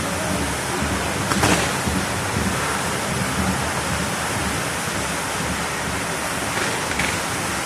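Steady, dense hiss of a burning fireworks castle, with a sharp crack about a second and a half in and a fainter one near the end.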